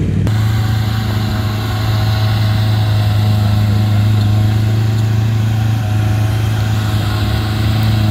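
Off-road 4x4 engine running at a steady speed, a low even hum.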